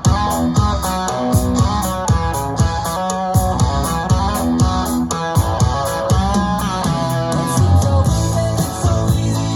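Rock music played back through a Minirig 3 portable Bluetooth speaker: an instrumental guitar passage with bass and a steady drum beat, no vocals.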